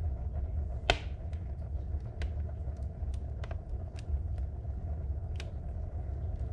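Wood fire burning in a cast-iron wood stove with the glass door shut, its thick logs fully alight. A steady low rumble comes from the flames, with scattered sharp crackles and pops from the burning wood; the loudest pop comes about a second in.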